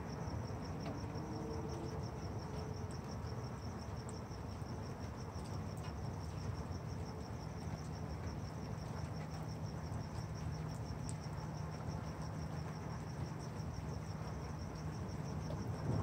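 Crickets chirping in a steady, high-pitched, evenly pulsing trill over a low, steady background rumble.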